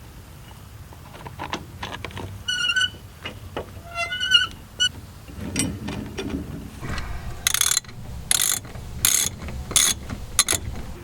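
Socket ratchet wrench clicking: scattered clicks and a couple of short metal squeaks in the first half, then five quick ratchet strokes in a row in the second half.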